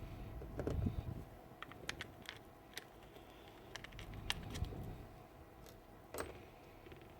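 Scattered light clicks and knocks of small tool parts being handled and fitted while a cordless grease gun is reassembled, with a duller knock about a second in.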